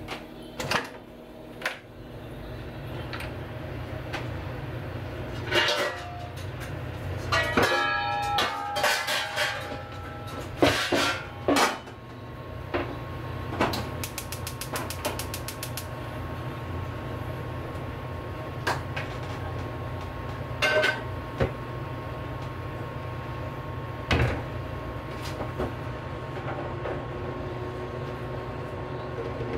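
Metal clatter and knocks of a deep iron frying pan being set down on a gas stove's metal grate, over a steady low hum. A quick run of small ticks follows, then a few single knocks.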